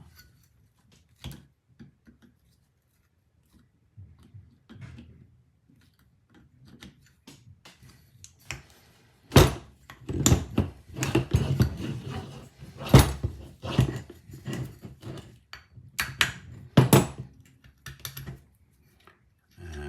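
Hand tools clicking and knocking on the outboard's propeller shaft as the split pin holding the propeller is bent straight and worked out: a few light clicks, then a busy clatter of metal-on-metal knocks with several sharp loud strikes.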